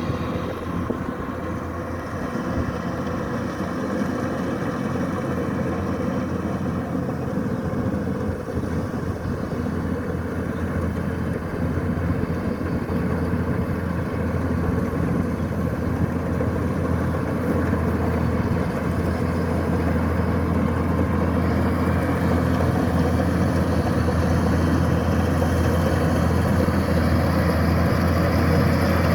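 Kubota DC-105X combine harvester's diesel engine running steadily with a low, even hum, growing gradually louder over the second half.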